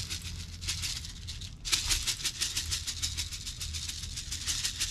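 Spice shaker of peppercorns being shaken, a fast run of rattling shakes with a short pause about a second and a half in.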